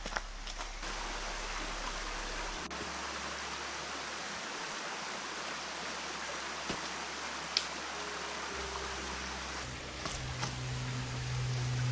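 Steady rush of a river flowing over stones, with a few sharp clicks.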